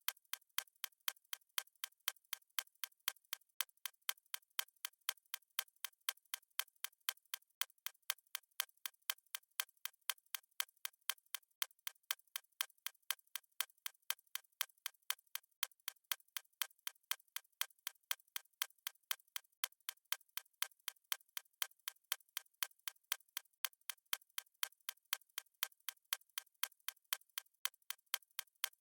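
Clock-ticking sound effect of a countdown timer: steady, evenly spaced, thin, crisp ticks with no bass, running on without a break.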